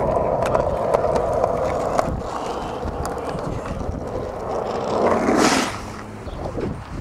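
Skateboard wheels rolling over asphalt, a steady rumble that is strongest for the first two seconds and then fades. A short loud hiss cuts in about five seconds in.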